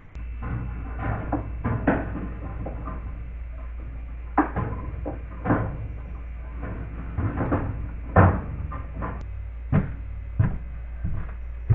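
Irregular knocks and bumps of objects being handled, a few sharper than the rest, over a steady low hum.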